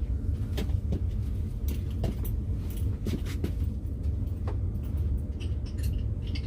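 Scattered clicks, clinks and knocks of hand tools being handled, over a steady low rumble.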